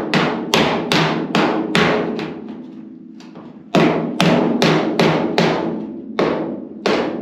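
Hammer and dolly blows on the steel roof of an old coupe, knocking out a caved-in section. The ringing metal strikes come about two to three a second, in runs broken by a short pause a couple of seconds in.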